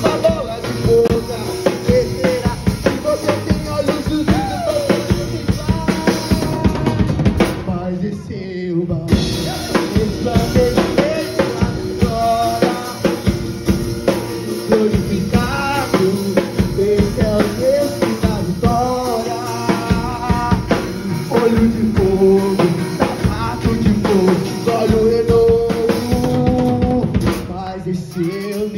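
Live band playing: a drum kit with kick, snare and rimshots drives it, under an acoustic guitar and a male voice singing. Nearly everything drops out briefly about eight seconds in, then the playing resumes.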